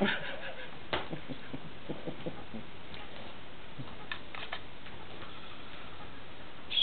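Irregular light taps and clicks from a pet corella working at a small cardboard box, with a sharper tap at the start and another about a second in.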